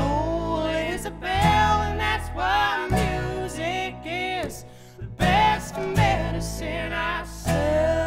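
Live acoustic folk trio playing: resonator guitar, acoustic guitar and upright bass, with a woman's voice singing.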